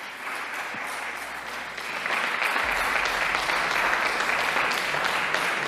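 Applause from a group of people clapping, starting softly and growing louder about two seconds in.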